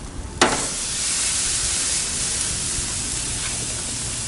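Marinated leg of lamb sizzling as it sears on a hot barbecue grill: a sharp knock about half a second in, then a steady, loud sizzle.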